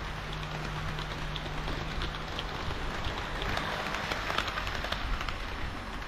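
HO-scale model diesel railcars rolling along the track: the wheels make a steady rushing sound with scattered small clicks over rail joints, and a low steady motor hum fades out about two seconds in. The rushing grows louder a little past the middle as a car passes close.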